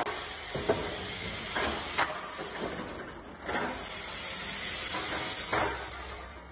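SW-Paratus automatic pallet changer running: a steady hiss from the machine with irregular clunks and knocks as its clamp panels and fork arms move against the load and the pallets. The hiss cuts off just before the end.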